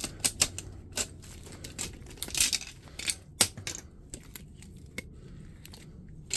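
Plastic and metal parts of a fax machine being handled and pulled apart by hand: irregular sharp clicks and clatters, with a brief rustle about two and a half seconds in.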